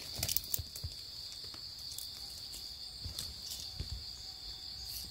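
A steady high-pitched drone of forest insects, with scattered short rustles and clicks of someone moving through the undergrowth.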